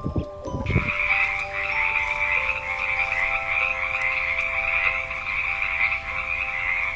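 A dense chorus of frogs calling, a continuous shrill trilling that starts just under a second in, over soft sustained background notes.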